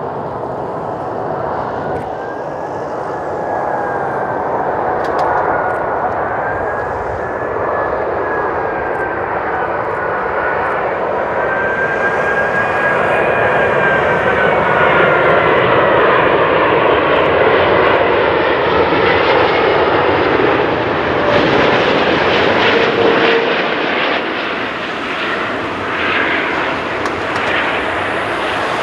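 Airbus A380-841's four Rolls-Royce Trent 970 turbofans on final approach to land, passing close: a heavy jet engine noise with whining tones that glide up and down, growing louder toward the middle and easing a little near the end.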